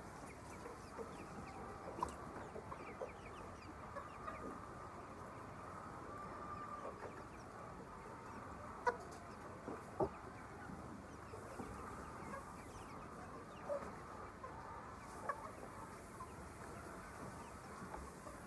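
A flock of chickens clucking and calling without pause, many birds overlapping, with a few louder short calls or knocks now and then.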